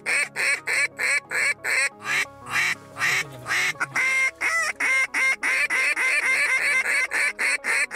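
Mouth-blown duck call worked in a rapid, unbroken string of short quacks, about four a second, calling to flocks of ducks overhead.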